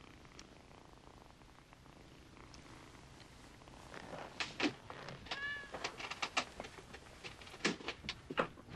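Cat being stroked in a lap, purring faintly. From about four seconds in come a series of sharp clicks and knocks, with a short rising-and-falling squeak in the middle.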